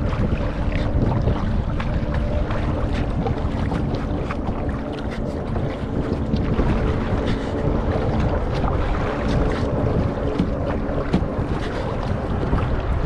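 Wind buffeting the microphone with a steady low rumble, while small waves slap and splash against the bow of a kayak moving through choppy water. A faint steady hum runs underneath.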